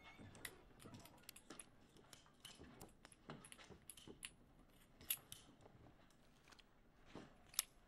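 Faint, light metallic clicks of a revolver being handled and reloaded after firing, with a sharper click about five seconds in and another near the end.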